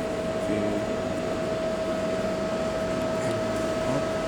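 Steady machine hum in a workshop, with a constant high-pitched whine over an even noise.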